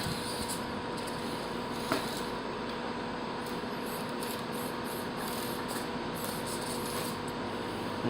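Redcat Racing Sumo 1/24-scale RC crawler's small electric motor and gearbox whining at a steady pitch as it crawls, with a single sharp click about two seconds in.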